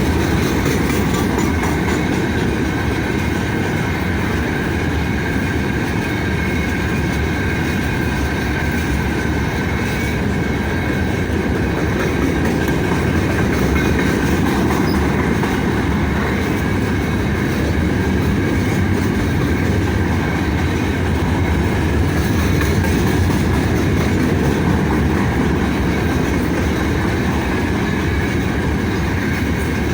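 A long freight train of about 75 wagons rolling past, a steady rumble of steel wheels on the rails with faint clickety-clack and a thin wheel squeal over the top.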